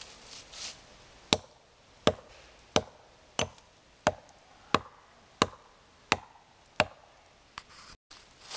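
Hatchet chopping into a thin tree trunk: nine sharp, evenly paced strikes about two-thirds of a second apart.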